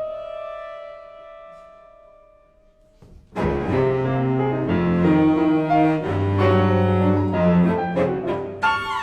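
Cello and piano duo playing contemporary classical music: a single high held note fades away, then about three seconds in both instruments come in loudly together with low, heavy notes and chords.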